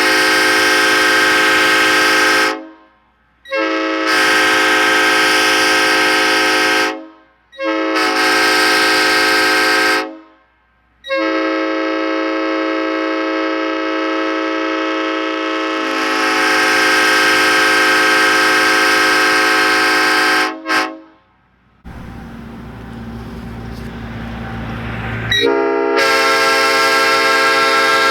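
A multi-note horn blown in long, loud chord blasts, about six of them with short gaps between. The longest lasts about ten seconds, and its chord shifts lower partway through. Between the last two blasts a low rumble runs for a few seconds.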